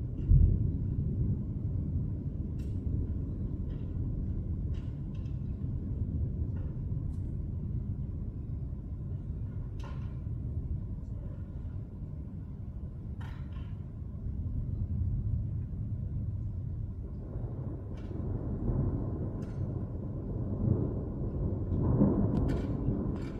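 Thunder rumbling low and continuously, swelling again in the last third and loudest near the end, with faint scattered ticks over it.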